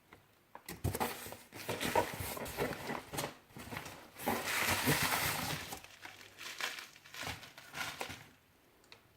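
Packaging being handled and unwrapped: irregular crinkling and rustling with small clicks and knocks, thickest in the middle and stopping about a second before the end.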